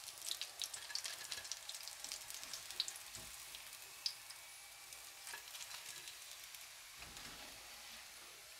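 Hot oil sizzling and crackling in a frying pan around breadcrumb-coated chicken meat rolls as they finish frying, the crackles dense at first and thinning out after about three seconds, with one sharper pop about four seconds in.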